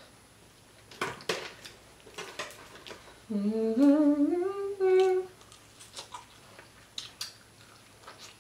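A woman's closed-mouth 'mmm' hum of enjoyment, about two seconds long near the middle, rising in pitch and then holding. Around it are scattered light crackles and clicks as crispy fried croaker fish is pulled apart by hand and eaten.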